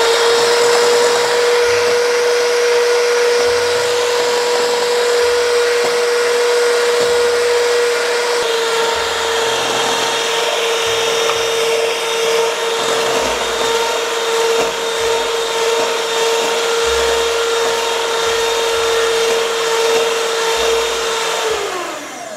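Electric hand mixer running at a steady speed with a constant whine, its beaters whipping eggs and sugar into a light, fluffy foam. The motor winds down and stops near the end.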